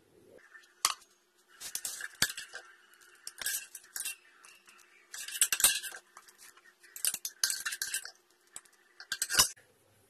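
Long steel spoon scraping and clinking against the inside of an aluminium pressure cooker in repeated short bursts, as dry-fried mutton is stirred and spooned out into a serving bowl.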